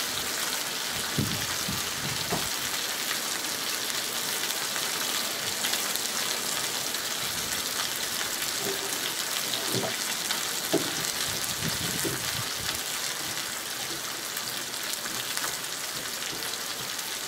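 Chicken thighs sizzling steadily in their own fat on a hot griddle plate over a portable gas burner.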